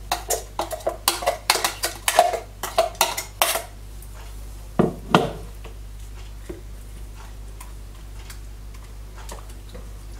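A spoon scraping and clinking against a stainless steel mixer-grinder jar as wet ground masala paste is scooped out: a quick run of sharp metallic clinks, then two knocks about five seconds in. After that only occasional faint ticks of the spoon on a steel plate as the paste is spread.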